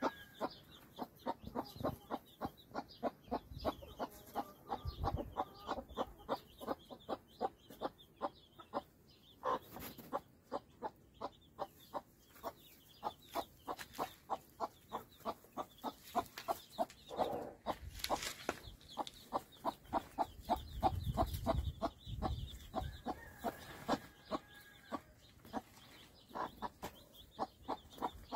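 Mother hen clucking to her newly hatched chicks in a steady run of short clucks, about three a second, with the chicks peeping over it.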